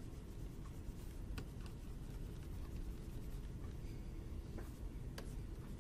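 A computer mouse clicking a few times, faint and spaced apart, over a low steady room hum.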